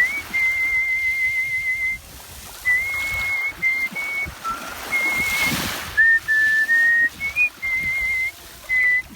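Solo artistic whistling: a person whistling a melody in a clear, pure tone, with long held notes ornamented with vibrato and short pitch slides between notes. A brief rush of noise comes about five and a half seconds in.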